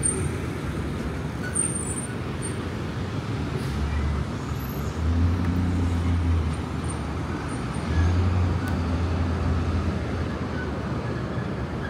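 City street traffic: a steady wash of passing vehicles, with a low engine rumble swelling up twice as heavier vehicles go by.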